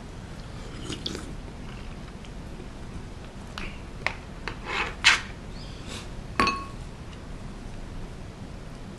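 Wooden spoon and tableware knocking and clicking against the soup container and rice bowl while eating: a few short clicks around the middle, the loudest a brief ringing clink about six and a half seconds in.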